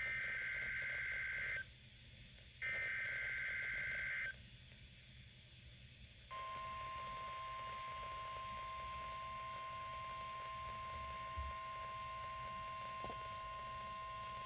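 NOAA Weather Radio SAME test signal heard through weather radio receivers: two warbling two-tone digital data bursts of about a second and a half each, a second apart. After a pause, the steady weather radio warning alarm tone starts about six seconds in and holds, with a fainter lower tone under it.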